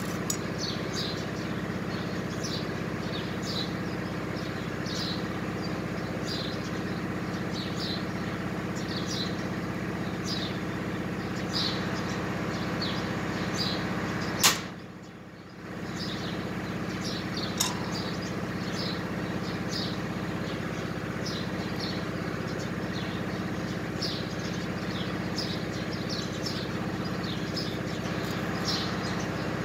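A steady mechanical hum from a running machine, with small birds chirping in short high notes, about one or two a second. A single sharp click sounds about halfway through.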